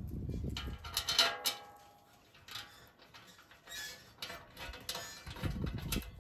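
Light metallic clicks and clinks from bolts and a pressed-steel sill panel being handled, with a short metallic ring about a second in.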